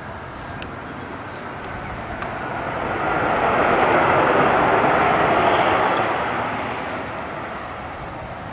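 Twin rear-mounted turbofans of an Embraer ERJ-145-family regional jet running on the landing rollout: a steady jet rush with a faint whine that swells to its loudest about three to six seconds in, then fades.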